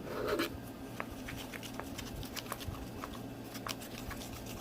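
Glitter being shaken and tapped out of its container into the slime: a brief rustle at the start, then irregular light ticks and taps.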